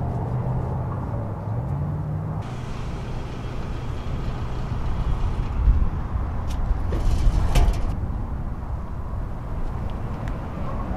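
Compressed air hissing from an air-station hose into a tire on its rim while the tire is reinflated, with a low rumble of road traffic behind. Two loud thumps come about halfway through, the second during the later, shorter burst of hiss.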